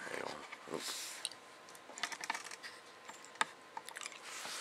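Scattered small clicks and taps, the sharpest about three and a half seconds in.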